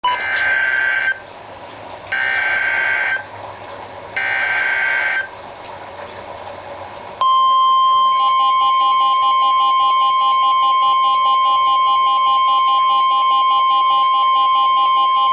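Midland WR-100 NOAA weather radio receiving an Emergency Alert System severe thunderstorm warning: three short bursts of screeching digital SAME header data about a second apart, with radio hiss between them. Then the steady 1050 Hz warning alert tone, with a fainter pulsing beep over it.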